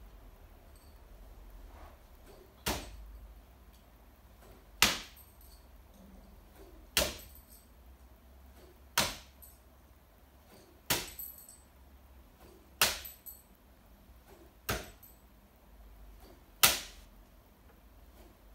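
Bo shuriken thrown one after another into a target board, each hitting with a sharp thunk that rings briefly: eight strikes about two seconds apart, and a ninth right at the end.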